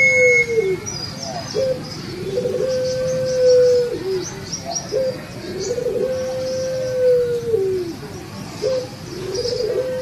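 Puter pelung, a domestic ringneck dove bred for long coos, cooing again and again: about every three seconds a short note, a quick rolling lead-in, then one long held coo that falls away at its end. Faint high chirps sound behind.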